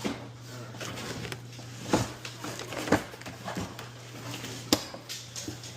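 Handling noise from unpacking a large TV box, with three sharp snaps, about a second apart, as the packaging's fasteners are pulled until they break. A steady low hum runs underneath.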